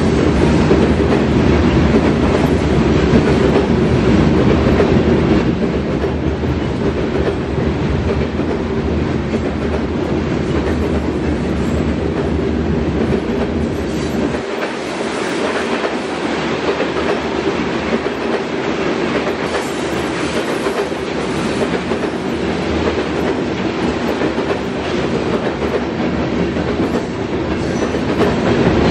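Freight train of covered hopper cars rolling steadily past, wheels clicking over the rail joints under a continuous rumble. About halfway through, the deep part of the rumble drops away suddenly, leaving the lighter clatter.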